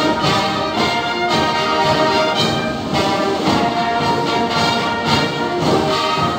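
Uniformed brass marching band playing a tune: trumpets, trombones and sousaphones over a beating drum.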